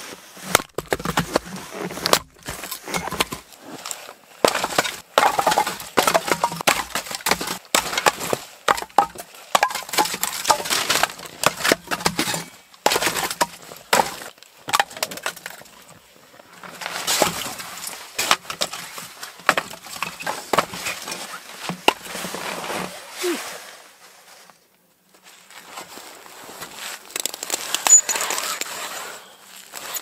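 Split firewood clattering and knocking as chunks are tossed onto a woodpile, many sharp wooden knocks in quick succession. After a short break near the end comes the steady scraping of a hand ice auger boring through lake ice.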